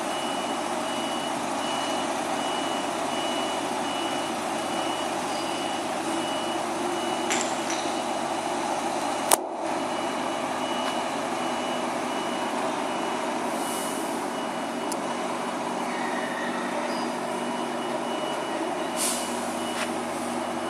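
Heavy lorry diesel engines idling, with a truck's reversing alarm beeping evenly at a high pitch throughout. A single sharp click about nine seconds in, and a few brief hisses.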